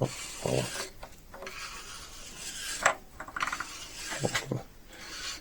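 Metal parts of a steering rack being handled: scraping and rubbing with several light clinks and knocks as the rack's pressure yoke and spring are worked out of the housing.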